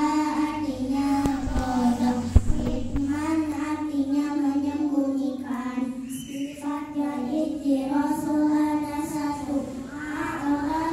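A group of young girls singing together into handheld microphones, holding long notes phrase after phrase. A brief thump cuts in about two seconds in.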